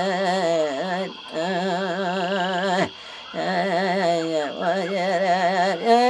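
A single voice singing long held notes with a strong, wavering vibrato, in phrases broken by short pauses about one and three seconds in, over a steady high-pitched tone.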